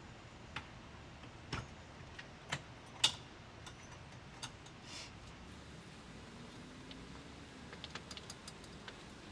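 Scattered light clicks and knocks, with one louder knock about three seconds in and a run of small ticks near the end.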